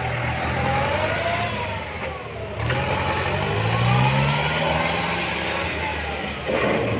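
Kubota M9540 tractor's diesel engine running as the tractor is driven in a brake test, its pitch rising as it accelerates about three seconds in and easing off again. A short burst of louder noise comes near the end.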